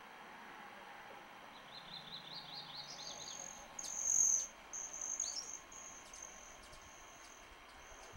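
Birds chirping: a quick run of rising chirps, then a high, thin trill in several stretches, loudest about four seconds in.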